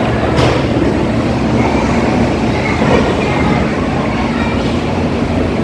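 Taipei Metro (MRT) train running, a steady, even noise of wheels on rail.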